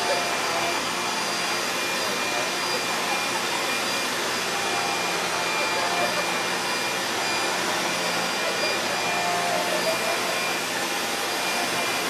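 Upright vacuum cleaner running steadily as it is pushed across a hardwood floor: an even rushing noise with a steady high whine from the motor.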